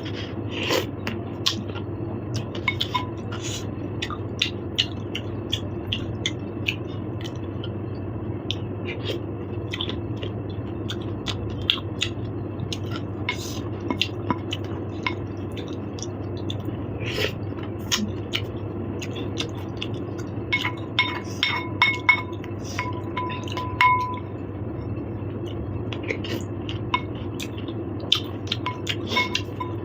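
Cutlery clinking and scraping against plates and bowls during a meal: many sharp, irregular clicks, some of them ringing briefly, busiest about two-thirds of the way in. A steady low hum runs underneath.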